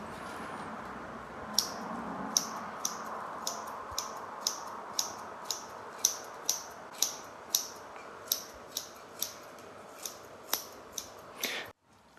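Kitchen scissors snipping squash blossoms into small pieces: a crisp snip about twice a second, some twenty in a row, starting a second and a half in.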